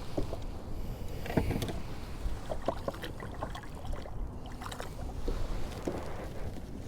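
Sounds of a fishing kayak on open water: a steady low rumble of water and wind on the hull, with scattered small knocks and clicks against the kayak.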